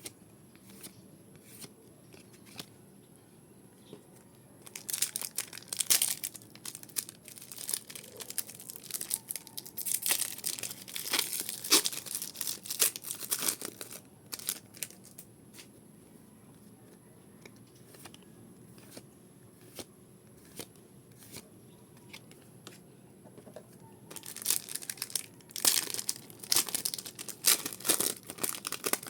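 Pokémon card booster pack wrappers being torn open and crinkled, in two long spells of crackling rustle: one from about five seconds in to about fourteen, and another near the end. Light scattered clicks and taps fall in between.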